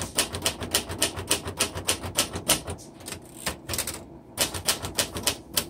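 Keys of a 1961 Royal Tab-O-Matic manual typewriter struck in quick succession, sharp clacks of the typebars hitting the platen at several a second, with a short pause about three seconds in.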